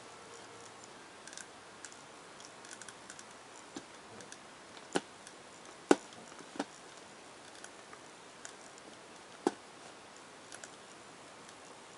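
Irregular sharp clicks and taps, with a few louder knocks around the middle and one more shortly after.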